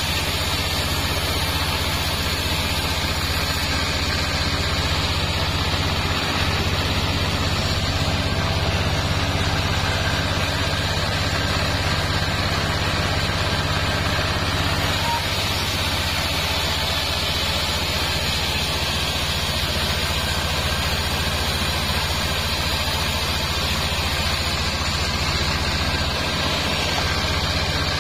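Band sawmill running steadily, its drive and band blade giving a constant low hum while sengon logs are sawn.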